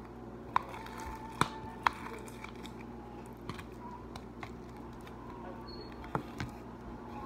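A spoon clicking and scraping against a plastic tub as clumpy slime is scooped out: a few sharp clicks, three in the first two seconds and two more near the end, over a steady low hum.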